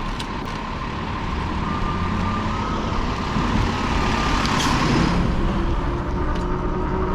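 Wind rushing over the microphone and road noise from a moving fat-tyre e-bike. The rush swells and brightens about four to five seconds in, then eases.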